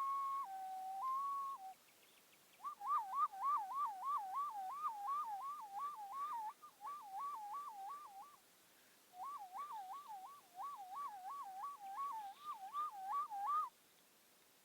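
A person whistling an imitation of a police siren. It starts as a slow high-low two-tone, then after a short pause turns into a fast rising and falling warble, about three and a half swoops a second, broken by two brief gaps. It stops abruptly about a second before the end.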